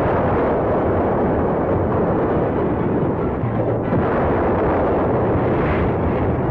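A steady, loud roar of battle sound effects, explosions and rumbling, with no separate blasts standing out. Low orchestral music with drum-like notes comes in about halfway through.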